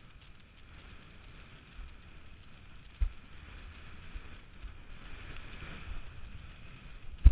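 Windsurf board planing fast over choppy water: a steady rush of water and wind buffeting the camera's microphone, with a thump about three seconds in and a louder one near the end as the board slaps into the chop.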